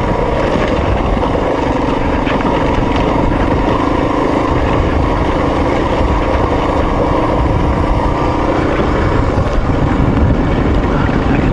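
Off-road motorcycle engine running steadily as it rides a rough dirt trail, its note held even over a constant low rumble.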